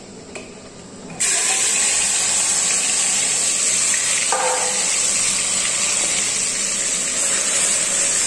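Marinated chicken sizzling in hot oil in a pressure cooker. The sizzle starts suddenly about a second in, as the chicken hits the oil, and then runs on steadily and loud.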